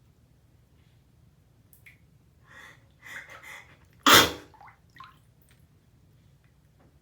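A person sneezing once, a sharp loud burst about four seconds in, after a second or so of short breathy build-up sounds.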